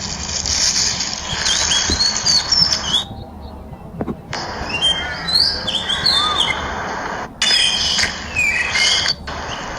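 Several birds chirping and whistling over a steady hiss, with short rising and falling calls; the sound drops out abruptly about three seconds in and returns about a second later.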